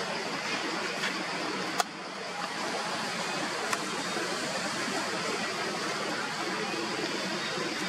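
Steady outdoor background hiss, with a sharp click about two seconds in and a fainter click about two seconds later.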